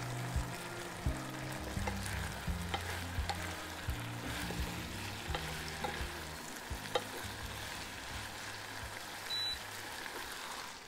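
Eggplant and minced pork in garlic sauce sizzling in a frying pan while a wooden spatula stirs them. Scattered sharp clicks are the spatula knocking and scraping against the pan.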